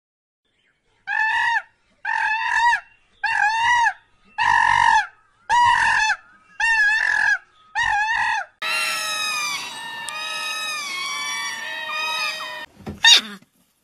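An animal calling in seven short, wavering calls about a second apart, then a dense jumble of many overlapping calls for about four seconds, and one short sharp call near the end.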